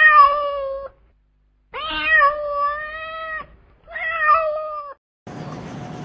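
A cat meowing three times in long, drawn-out calls, the middle one the longest. A steady background hiss starts near the end.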